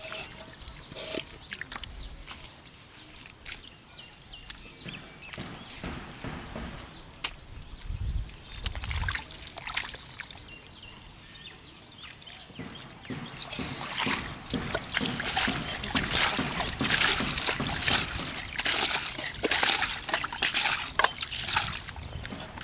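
Shallow muddy water sloshing and trickling as hands dig in the wet mud. From about halfway through come repeated, louder splashes as a steel bowl scoops and throws the water.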